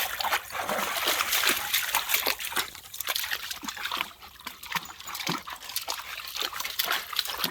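A Rottweiler wading through creek water, with a run of irregular splashes and sloshing over the trickle of the stream.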